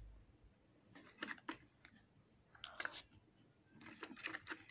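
Faint crunching of a crisp fried papad, broken and chewed in a few short bursts.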